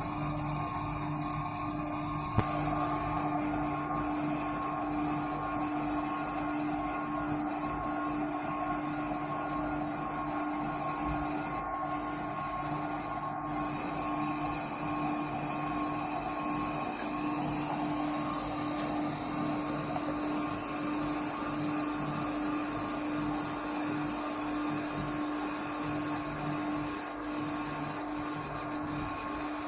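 Spindle motor of a homemade CNC router running steadily, holding a constant pitch while it machines a part.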